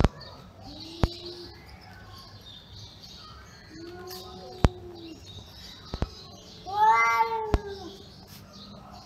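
Two domestic cats in a standoff, giving three low, drawn-out yowls that rise and fall in pitch. The last and loudest comes about seven seconds in. A few sharp clicks fall between the yowls.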